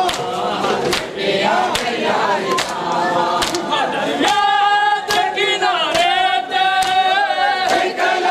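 Noha, a mourning lament chanted by men's voices, over a steady rhythm of open-hand strikes on bare chests, about one strike a second. About four seconds in, a single male voice takes the lead with a long held line.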